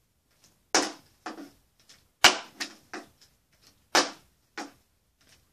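Plastic water bottle being flipped onto a wooden dresser top. There are three sharp knocks about a second and a half apart, the middle one the loudest, and each is followed by a lighter knock as the bottle bounces or tips over instead of landing upright.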